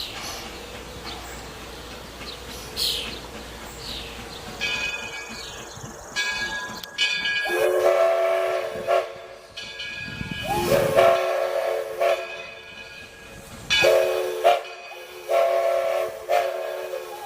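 Steam locomotive's chime whistle blowing four blasts, long, long, short, long: the grade-crossing signal. A rush of steam hiss comes between the second and third blasts.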